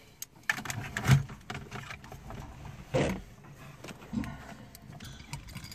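Bosch car radio head unit being pulled out of a Fiat Linea's dashboard slot with removal keys: a few separate knocks and scrapes of its metal case and the keys against the dash mounting.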